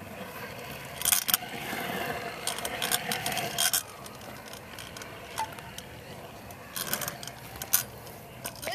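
Stunt scooter's hard plastic wheels rolling over a concrete skate bowl, with sharp clacks and rattles from the deck and bar. The rolling gets louder twice, about a second in for a few seconds and again for about a second near the end.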